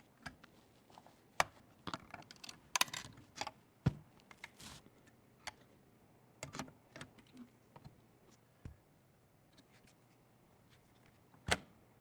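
Scattered small clicks, taps and light scrapes of hard parts being handled, irregular and spread apart, with a few sharper knocks, as computer components are unpacked and fitted.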